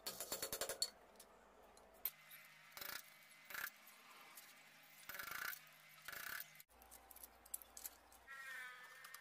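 Hammer blows on a flat steel strip clamped in a bench vise, bending it: a quick run of light taps at the start, then a few separate knocks and metal clinks.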